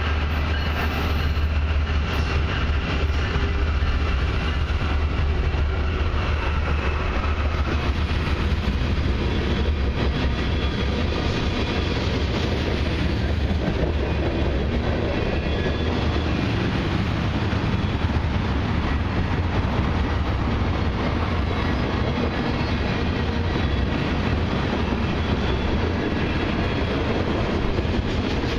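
Freight train led by two CN diesel locomotives passing close by. The locomotives' low engine rumble comes first, then the steady rolling noise of a long string of tank cars' wheels on the rails, with no break in loudness.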